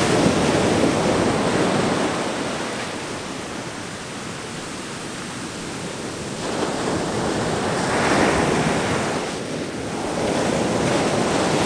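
Ocean surf breaking and washing up the beach, the rush swelling and easing as each wave comes in.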